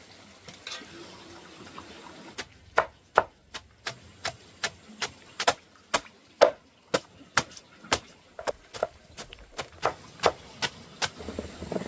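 A steady run of sharp chopping strikes, about two or three a second, starting a couple of seconds in and stopping near the end.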